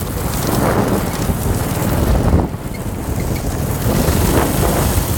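Heavy wind buffeting the microphone of a go-kart moving at speed, over the go-kart's engine running steadily, with a brief dip in level about halfway through.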